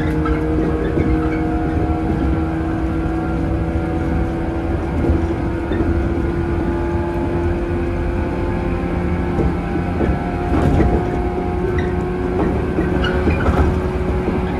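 Running sound of a 115-series electric train, heard from inside the carriage at speed: the steady hum of the traction motors, slowly rising in pitch, over the rumble of the wheels, with a few knocks from the wheels over rail joints.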